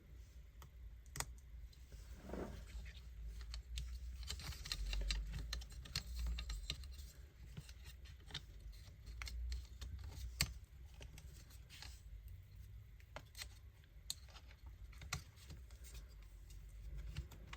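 Light clicks, taps and brief scraping of small tools and parts being handled inside an open MacBook Air, irregular and scattered throughout.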